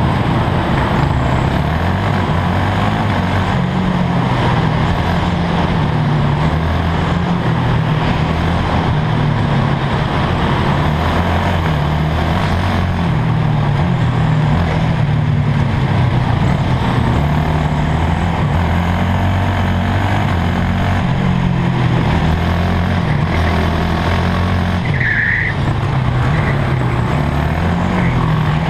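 Two-stroke racing kart engine at racing speed, its pitch climbing and dropping again and again as it accelerates and brakes through the corners. A short high squeal comes about 25 seconds in.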